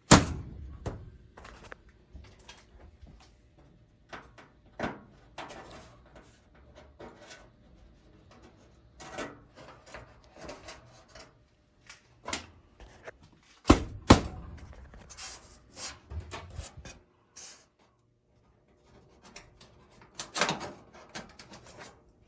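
Irregular knocks, clunks and scrapes of hand work on hard parts. The sharpest strikes come at the very start, as two close together about 14 seconds in, and as a cluster about 20 seconds in.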